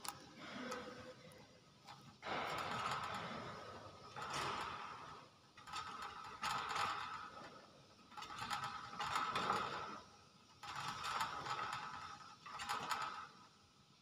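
Common hill myna giving harsh, raspy calls in repeated bursts of a second or so, one every couple of seconds.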